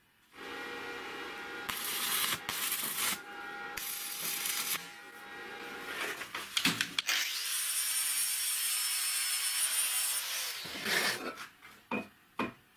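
Angle grinder running and working steel shock-absorber tube, a steady motor whine under loud grinding hiss, in two long spells with a short break in between. A few short metal knocks near the end.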